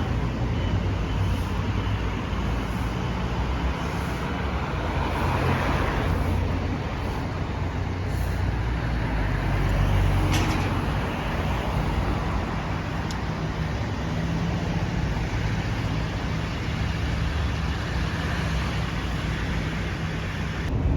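Steady rumble of road traffic or a motor vehicle in motion, heavy in the low end.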